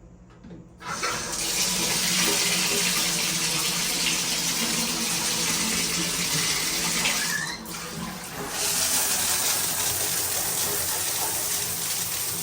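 Water running hard from a tap, turned on about a second in, dropping off briefly past the middle and then running on steadily.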